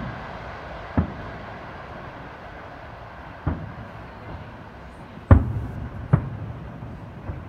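Fireworks shells bursting in the sky: about six sharp booms at uneven intervals, the loudest a little past five seconds in, over a steady background rumble that slowly fades.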